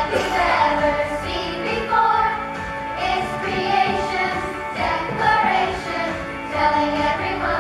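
Children singing a song together with instrumental accompaniment.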